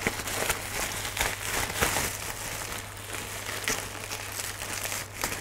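Parcel packaging crinkling and rustling as it is unwrapped by hand, a busy run of crackles and small clicks that is strongest about two seconds in, over a steady low electrical hum.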